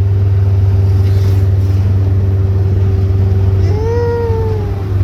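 Steady low drone of a car being driven, engine and road noise heard from inside the cabin. About four seconds in there is a brief pitched sound that rises and then falls.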